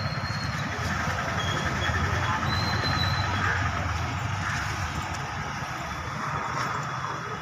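Motorcycle engines running as bikes ride slowly through shallow floodwater close by, over a steady low rumble.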